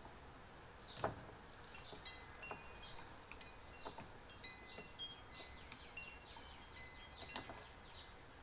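Faint high ringing tones of wind chimes tinkling on and off, with a few light clicks, the sharpest about a second in.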